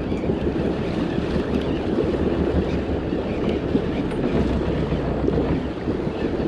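Boat engine running with a steady low rumble, mixed with scraping and rustling from a shirt sleeve rubbing against the camera's microphone.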